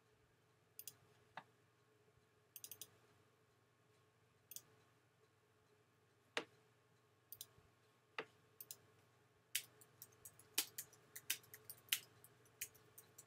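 A few separate clicks, like mouse clicks, then from about two-thirds of the way in a quick run of computer keyboard typing.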